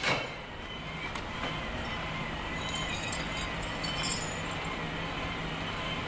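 City ambience recording of a vehicle running steadily, starting abruptly. A faint wavering high whine runs over the noise, and a few light clicks come about three to four seconds in.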